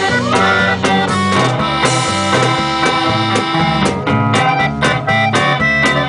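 Live norteño band playing at full volume: accordion carrying the melody over strummed guitars and a twelve-string, electric bass walking below, and drums keeping a steady beat.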